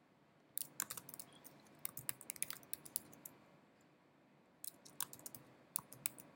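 Typing on a computer keyboard: quick runs of key clicks, stopping for about a second and a half in the middle before a second run of keystrokes.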